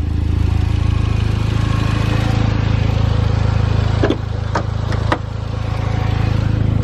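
Mitsubishi Lancer Evolution X's turbocharged four-cylinder engine running steadily. Three short, sharp clicks come about four to five seconds in.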